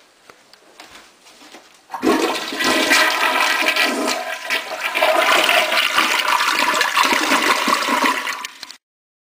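Toilet flushing: a loud rush of swirling water starts abruptly about two seconds in and runs strongly until it cuts off suddenly near the end. Faint light clicks come before it.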